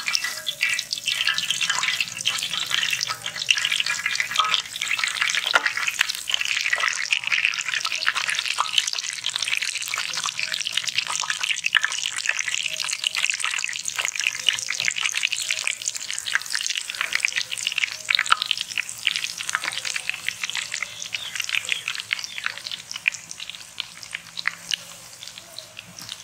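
Battered chicken fingers deep-frying in hot oil in a large iron kadai: a dense, steady sizzle of popping bubbles that eases slightly near the end.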